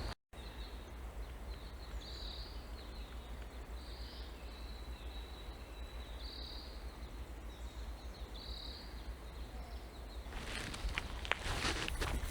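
Forest ambience: a steady low rumble with a high call repeating about every two seconds. About ten seconds in, footsteps start up along the trail.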